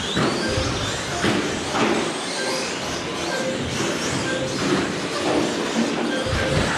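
Several 1/10-scale electric RC short-course trucks racing together, their motors whining up and down in pitch as they accelerate and brake.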